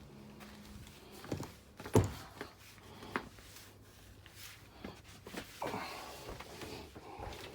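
Scattered knocks and clicks in a small enclosed room, with one sharp knock about two seconds in.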